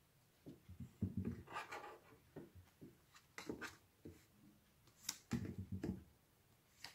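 Playing cards being flipped off a deck and laid face up on a table: faint scattered taps and card slides, with a few sharper clicks.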